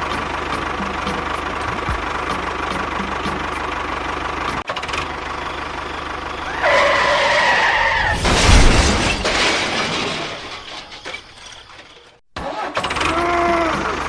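A small engine running steadily, then a few tones that rise and fall, and a loud rushing burst about eight seconds in that fades away before an abrupt cut.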